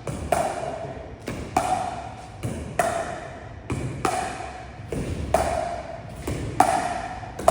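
Pickleball rally: paddles striking a plastic pickleball back and forth, about six sharp pops a little over a second apart, each with a short hollow ring. Softer taps fall between the pops.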